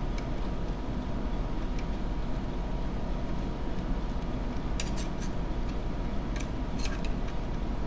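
A few small metal clicks from a spread C-clip being worked off a euro cylinder lock with a spreader tool, about five and seven seconds in, over a steady background hum.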